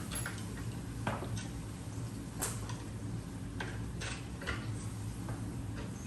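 A steady low hum with scattered light clicks and knocks, about six over the span, the sharpest about two and a half seconds in.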